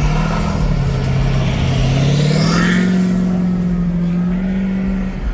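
A road vehicle's engine driving past, its pitch climbing about two seconds in as it accelerates, then holding steady.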